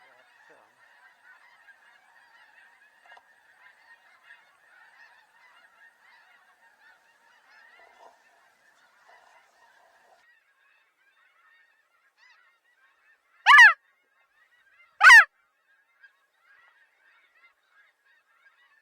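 Snow goose calling: a faint, continuous chatter of many honks, broken by two loud, close honks about a second and a half apart near the end.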